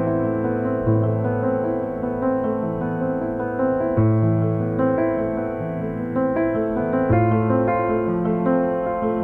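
Solo piano playing slow, sustained chords, a new bass note about every one to three seconds.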